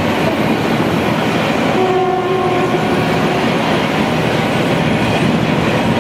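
Loud, steady industrial din inside a steel mill, among rail ladle cars full of molten steel. A short horn note sounds about two seconds in and lasts a second or so.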